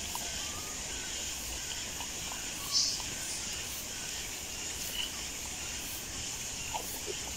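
Outdoor background of steady hiss with faint, brief chirps, and one short high-pitched squeak about three seconds in.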